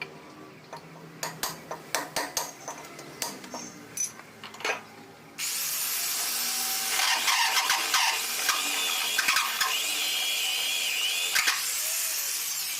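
Some clicks and knocks, then an electric drill starts suddenly about five seconds in and runs steadily with a high, wavering whine, boring a hole into the bathroom wall for a pipe fitting.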